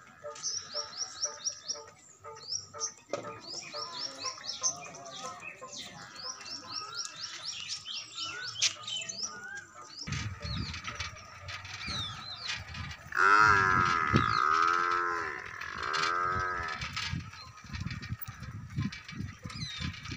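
Small birds chirping with quick repeated calls. Then, about 13 seconds in, a cow moos loudly in a long call that breaks into two parts, the loudest sound here.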